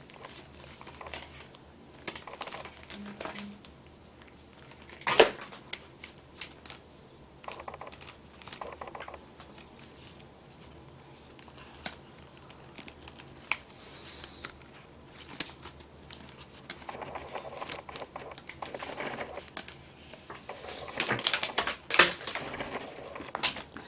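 Rustling and crinkling with scattered light clicks and taps as the headphones and their packaging are handled, busier near the end.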